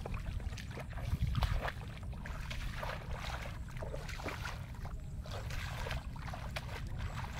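Bare feet splashing and squelching through shallow water and mud, in irregular steps, over a low steady rumble.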